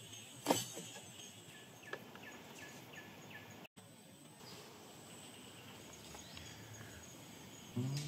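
Outdoor ambience with a steady, faint insect drone. A single sharp click sounds about half a second in, and a short run of quick falling chirps follows around two seconds in. Background music starts right at the end.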